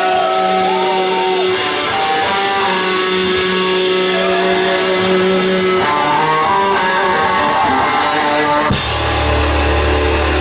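Live heavy metal band playing a song's instrumental intro: electric guitar with bending lead notes over sustained chords. Near the end a heavy low end comes in suddenly.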